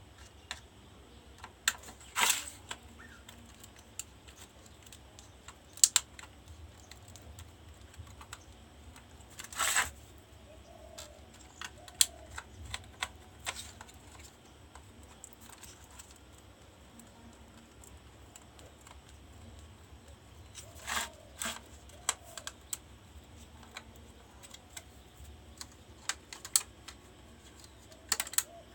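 Irregular clicks and light taps of small tools and plastic or circuit-board parts being handled during an induction cooktop repair, over a faint low hum.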